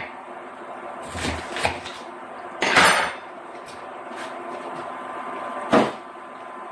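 A few knife chops on a cutting board as a bunch of asparagus is cut, the loudest about three seconds in and a last sharp knock near six seconds. A faint steady sizzle of bacon frying in a skillet runs underneath.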